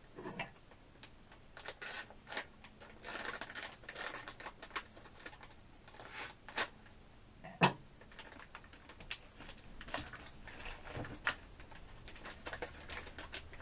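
Blind bag wrapper crinkling and crackling as it is handled and opened, in irregular small crackles, with one sharper crack about seven and a half seconds in.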